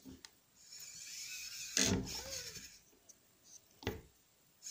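Small electric motor and metal gear reduction of a 1/43-scale LDARC RC crawler whining as it is driven over rocks, the pitch rising and falling with the throttle. A sharp knock comes about two seconds in and a click near the end.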